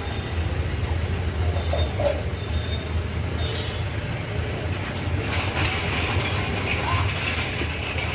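Steady low vehicle rumble, with scattered clicks and a stronger hiss in the second half.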